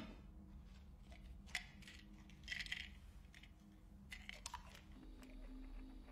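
Very quiet room tone with a low steady hum, broken by a sharp click at the start and a few faint clicks and soft rustles of small objects being handled.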